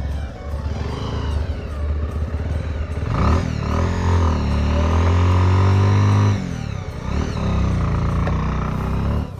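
Bajaj Pulsar 150 motorcycle's single-cylinder engine revving under acceleration. It climbs to high revs about three seconds in and holds there, drops off sharply around six seconds, then pulls up again briefly.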